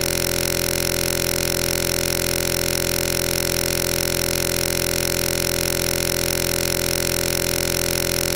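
A steady, unchanging electronic buzz made of many fixed tones, with no change in pitch or loudness.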